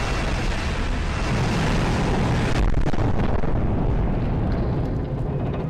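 Explosion aftermath sound effect: a steady low rumble under a noisy hiss, the hiss fading about halfway through.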